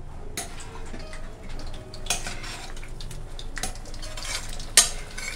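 Metal spoon stirring and scraping in a cooking pan, with irregular clinks against the pan and one sharper knock near the end.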